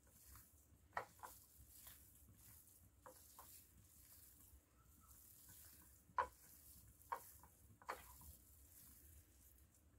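Faint wet squishing of a hand kneading and squeezing ground sardine kefta mixture on a plate, with a few sharper sticky smacks about a second in and again several times from about six seconds on.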